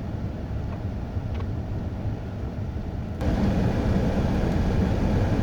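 Pontiac Grand Prix driving on a slushy, wet road, heard from inside the cabin: a steady low road and engine rumble. About three seconds in it turns suddenly into a louder hiss of tyres through wet slush.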